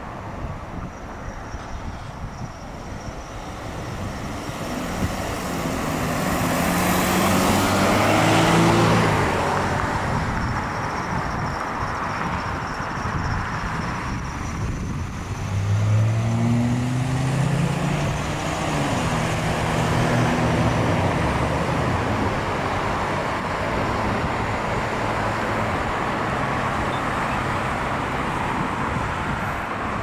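Road traffic with steady tyre and engine noise. One car passes close, swelling to a peak about eight seconds in. Around the middle another vehicle's engine rises in pitch as it accelerates through.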